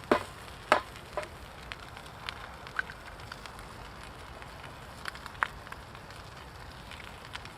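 An egg frying in oil in a pan: a steady sizzle with sharp pops and spits, the two loudest within the first second and a few smaller ones after.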